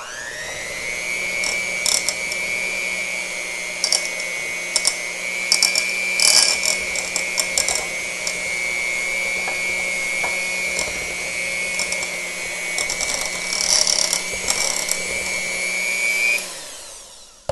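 Electric hand mixer beating butter and confectioners' sugar: the motor spins up to a steady high whine at the start and switches off near the end. The beaters click and rattle in the bowl at times.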